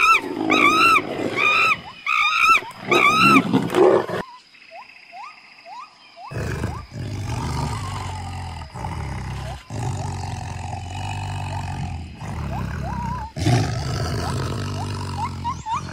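Monkeys calling in a fast run of loud, rising-and-falling shrieks for about four seconds, then, after a short lull, a tiger growling low and steadily, broken off by several cuts.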